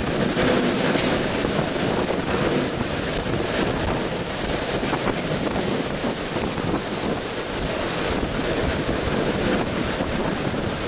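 Category 4 hurricane eyewall wind blowing through a building corridor with wind-driven rain, buffeting the microphone in loud, steady gusts.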